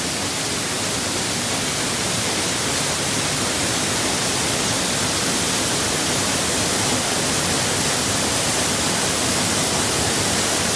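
Waterfall, water pouring down steadily as a loud, even hiss that stays constant throughout.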